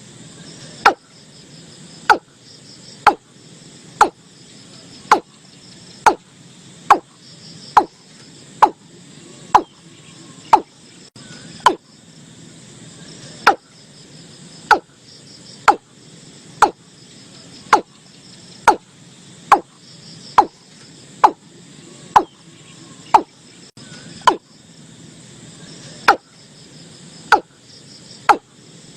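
Watercock calling, a series of short, sharp 'kok' notes about once a second, each loud against the background, with insects trilling behind.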